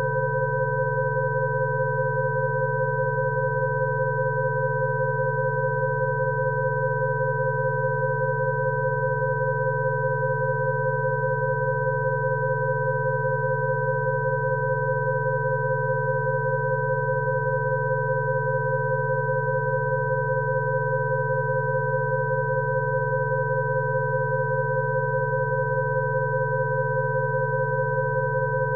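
Rife frequency tones: several steady pure electronic tones, high, middle and low, sounding together without any change.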